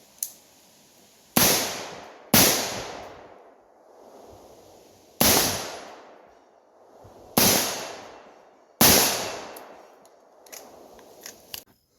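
Five gunshots from a firearm at a shooting range. The first two come about a second apart and the other three are more widely spaced, each dying away over about a second.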